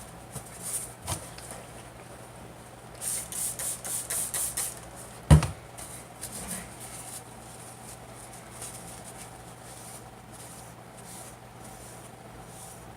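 A quick run of about seven rubbing strokes as excess epoxy is wiped off a rod blank and cork grip, then a single sharp knock about five seconds in. Light handling noises and a steady low hum continue throughout.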